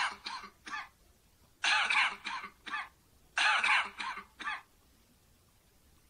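A person coughing in three bouts, each a loud cough followed by two or three shorter ones. The bouts come about a second and a half apart, and the coughing stops a little past the middle.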